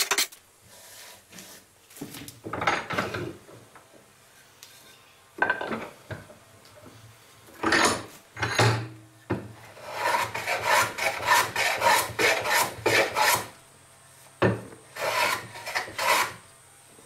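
Hand plane shaving the edge of a figured New Guinea rosewood board, a rasping cut with each stroke. A few separate strokes come first, then a quick run of short strokes in the middle, then two more near the end.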